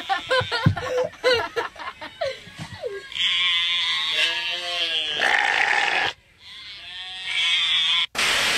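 Horned ram bleating: one long, wavering bleat lasting about three seconds, starting about three seconds in, then a shorter bleat near the end. A short loud burst of hiss comes just before the end.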